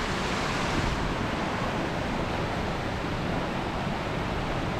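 The River Isla in spate after heavy storm rain: a steady rush of fast, churning floodwater.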